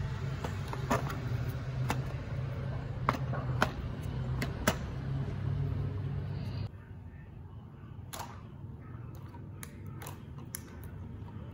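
Small handling clicks and knocks as a cylindrical battery is pushed into a plastic battery holder and a cardboard model train is handled. The sharp clicks come irregularly over a steady low hum, which drops away about two-thirds of the way through.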